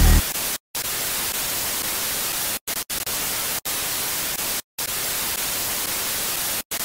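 Television static sound effect: a steady white-noise hiss, broken by several brief cuts to silence.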